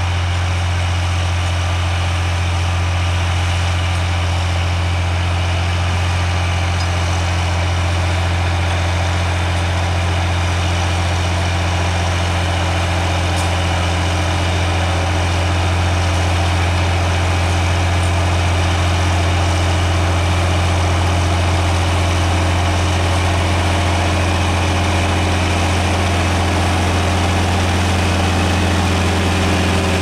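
John Deere 4320 tractor's turbocharged six-cylinder diesel running steadily under load while driving a power harrow through the soil. It grows slightly louder in the second half as the tractor comes closer.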